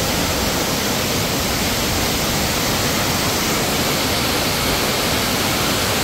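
Steady rushing of fast-flowing water, as a mountain stream or waterfall sounds up close: a loud, even hiss without breaks.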